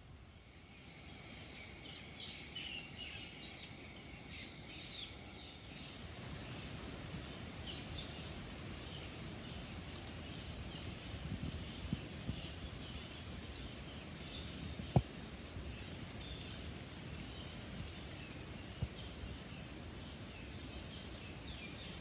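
Rainforest ambience: a steady high-pitched insect drone that swells briefly about five seconds in, with scattered bird chirps and twitters. A single sharp click near the middle.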